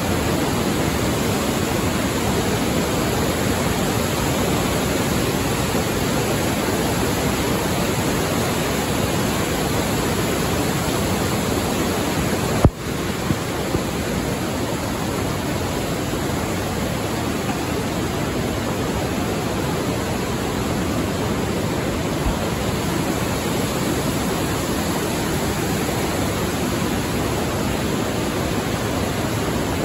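Glacial meltwater river rushing through a rock gorge: a steady, loud wash of water noise, with a single sharp click and a brief dip in the sound about thirteen seconds in.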